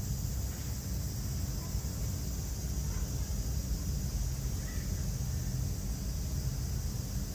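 Steady low outdoor background rumble with an even high hiss, and a faint short chirp about two thirds of the way in.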